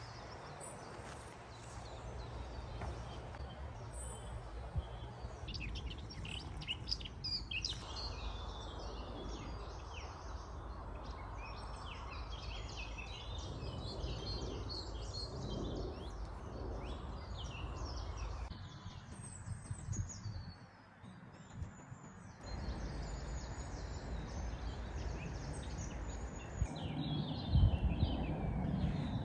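Several songbirds singing and chirping at once, many short overlapping calls, over a low steady rumble that grows louder near the end.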